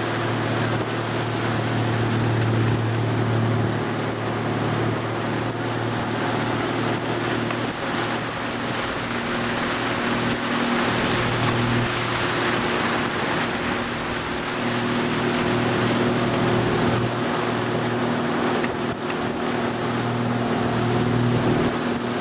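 Tow boat's engine running steadily while it pulls a wakeboarder, a constant hum under the rush and hiss of churning water from the wake.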